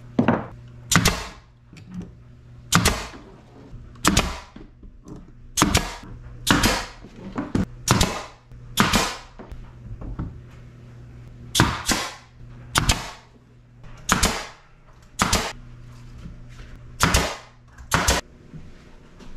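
Pneumatic brad nailer firing nails into wood: a sharp shot with a brief ring roughly once a second at irregular spacing, some in quick pairs.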